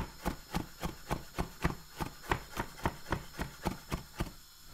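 Recorded sample of a knife chopping garlic, played back from a software sampler: quick, even chops about four a second over a faint steady tone.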